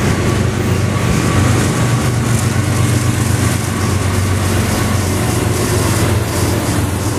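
BNSF intermodal freight train passing, with the diesel locomotives at its tail running with a steady low hum over the noise of wheels on rail. The level eases slightly about six seconds in as the locomotives go by.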